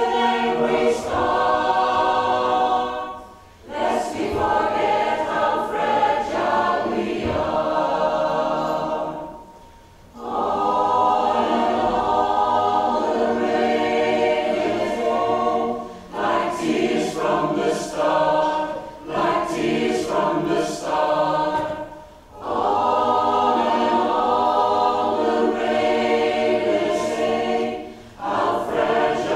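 Mixed choir of men's and women's voices singing in phrases of about six seconds, with brief breaks between phrases.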